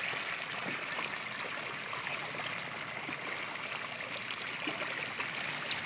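Steady flow of shallow water running through a muddy ditch, an even, continuous noise with no pauses.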